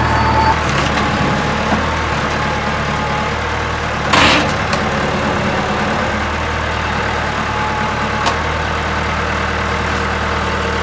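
Case IH MX100C tractor's diesel engine idling steadily, with a short loud noisy burst about four seconds in.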